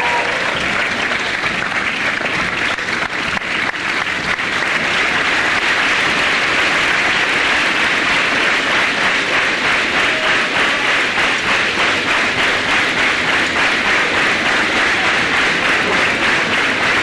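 Large audience applauding, a dense, continuous clapping that runs on without a break.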